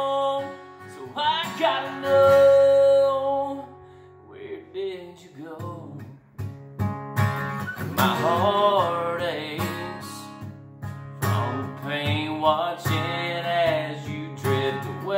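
A man singing a slow country song with held, drawn-out notes, accompanied by a strummed acoustic guitar. The singing lets up for a couple of seconds around the middle, leaving mostly guitar, then comes back in.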